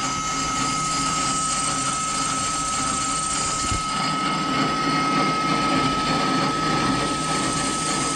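PM-1030V benchtop metal lathe running under power feed, facing the end of a bar blank: the spindle drive's steady high-pitched whine over the even noise of the cut.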